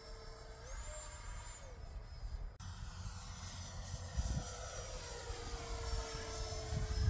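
E-flite F-35 radio-controlled jet's brushless electric ducted fan whining in flight. The pitch rises briefly under throttle about a second in and drops back, then after an abrupt cut it sinks slowly as the jet passes. Low wind rumble on the microphone underneath.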